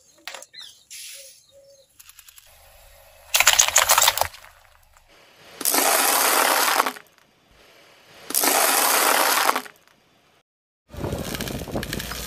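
Glass bangles cracking and crunching under a motorcycle tyre: a few small clicks, then a loud burst of breaking, crackling sounds about three seconds in. It is followed by two longer bursts of crackling noise, and a steady rumbling noise starts near the end.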